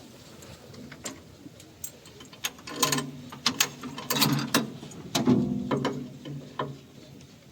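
Machinery clanking and rattling in a string of sharp knocks, busiest in the middle, with a low hum underneath.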